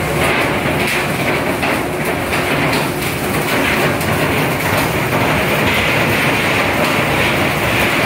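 Steady, loud machine noise with an irregular clatter running through it.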